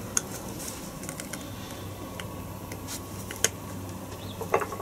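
Circlip pliers working a circlip on a gearbox mainshaft: scattered small metallic clicks and ticks, with a quick cluster of clicks near the end as the clip is worked loose. A steady low hum sits underneath.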